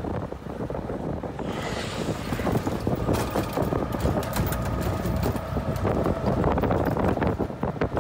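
Ride inside a moving CNG auto-rickshaw: its small engine running with a faint whine, the body rattling over the road, and wind rushing past the microphone. The rattling gets busier and a little louder from about three seconds in.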